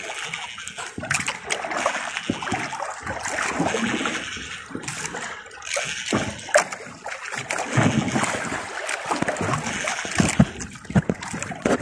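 Choppy sea waves splashing and slapping against the hull of a small wooden outrigger boat, with irregular sharp knocks of water hitting the boat.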